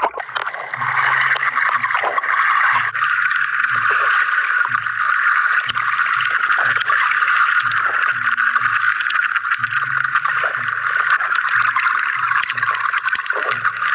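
Underwater sound picked up by a submerged action camera over a coral reef: a steady hiss with dense crackling, with a faint low hum beneath that shifts pitch in short steps.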